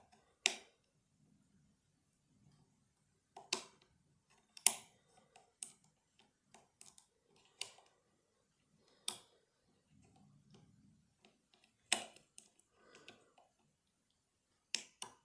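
Lever lock being picked with a 2-in-1 lever pick: about nine sharp clicks at irregular intervals, with fainter ticks between. The clicking comes from the tension coming on and off the lock.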